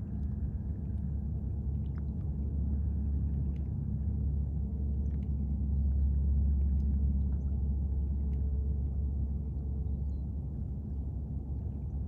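Steady low rumble that swells a little around the middle, with faint brief high-pitched sounds scattered over it.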